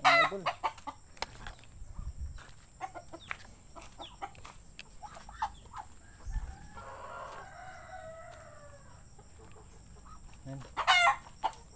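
Chickens clucking with many short sharp calls and squawking loudly at the start and again near the end, with a rooster crowing once in the middle: a drawn-out call that falls at its end.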